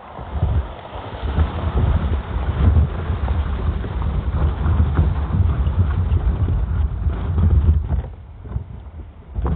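Wind buffeting the phone's microphone in a fluctuating low rumble, with footsteps in snow as the person filming walks. The rumble eases for a moment near the end.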